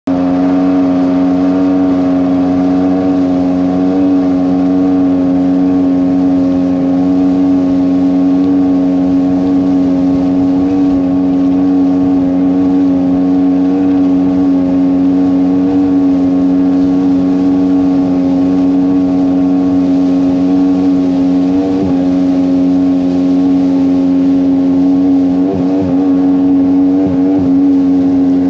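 Jet-drive outboard motor on an aluminium jon boat running steadily at planing speed, holding one even pitch, with a few brief wavers in pitch in the last several seconds.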